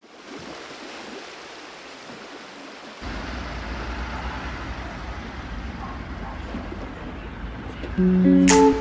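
Steady outdoor hiss, joined about three seconds in by the low rumble of vehicles moving slowly in the street. Plucked acoustic guitar music starts near the end and is the loudest sound.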